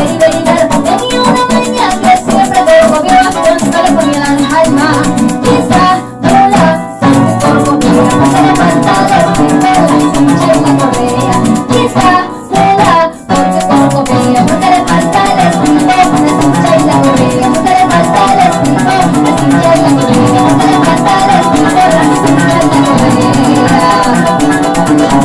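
Live llanera (joropo) music from a Colombian harp, a cuatro and maracas, the maracas shaking a steady rattle under the plucked strings. The playing breaks off briefly twice, about six and about thirteen seconds in.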